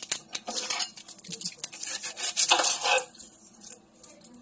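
Kitchen knife cutting into a whole onion on a wooden cutting board. Scattered knocks and short crunches come first, then a louder crisp crunch about two and a half seconds in as the blade goes through the onion.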